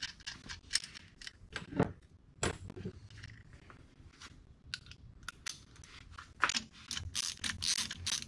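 Small metal clicks and clinks of hand tools and nuts being worked on the studs of a deck-height measuring plate fitted to a VW Type 1 cylinder. A few louder knocks come about two seconds in and again near six and a half seconds, and a quick run of clicking near the end as a torque wrench is handled.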